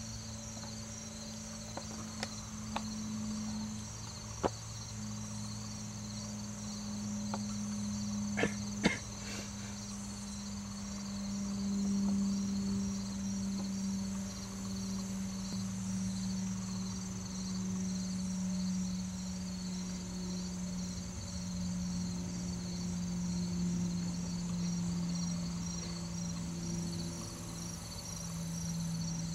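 Steady chorus of insects, a high pulsing trill, over a louder steady low hum that slowly sinks in pitch. A few sharp clicks sound in the first ten seconds.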